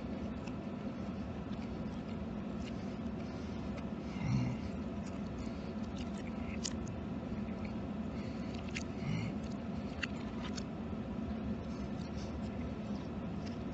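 Eating sounds played backwards: scattered small clicks and mouth smacks over a steady low hum, with a soft low thump about four seconds in and another around nine seconds.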